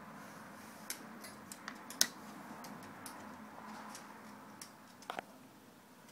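Faint, irregular small clicks and ticks over a low hiss, the sharpest about two seconds in and a quick double click a little after five seconds.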